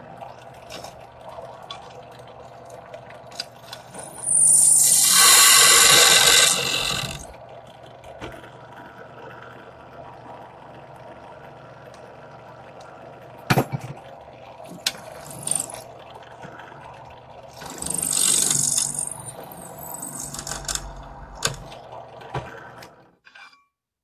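Drill press running steadily while its bit cuts into a forged steel knife-handle blank, with two loud bouts of cutting, about four seconds in and again about eighteen seconds in, and a sharp knock between them. The sound cuts off shortly before the end.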